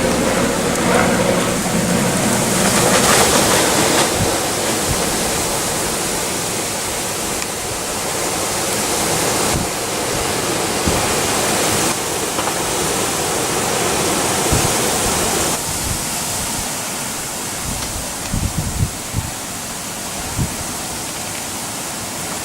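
Strong thunderstorm wind blowing in a loud, steady rush, with a few low thumps of wind buffeting the microphone near the end.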